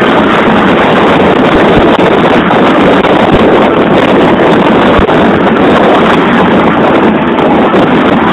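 Loud, steady rushing of wind buffeting a phone microphone on the open deck of a boat under way at sea.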